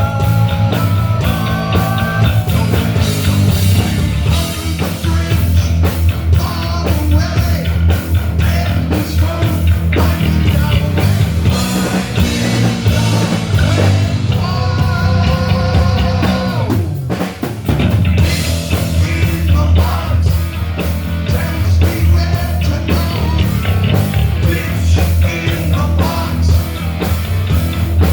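Loud rock music with a steady drum beat, guitar and singing. It dips briefly about two-thirds of the way through.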